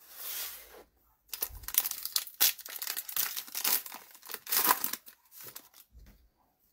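A foil trading-card pack torn open and crinkled by hand: a short rustle, then about four seconds of tearing and crackling with several sharper rips.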